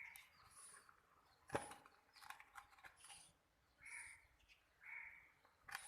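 Faint, scattered peeps of newly hatched Sussex chicks, with a sharp click about a second and a half in.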